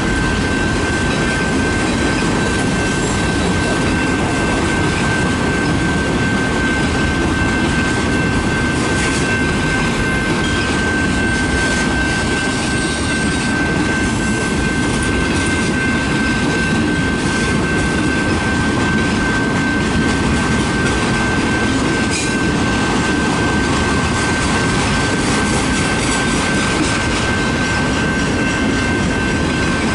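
Freight train of autorack cars rolling past: a steady, loud rumble of steel wheels on rail with a constant high-pitched tone running through it.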